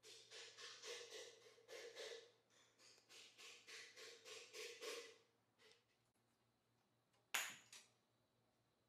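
Faint, quick knocking or tapping, about four to five strokes a second, for the first five seconds, then one sharp knock with a short ring about seven seconds in.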